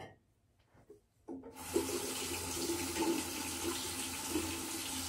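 Water tap turned on about a second in and running steadily into a sink.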